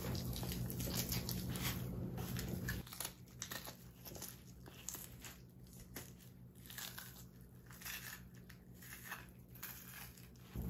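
Perch skin being peeled back off the flesh by hand, giving faint crackling and tearing. A low steady hum under it cuts off about three seconds in.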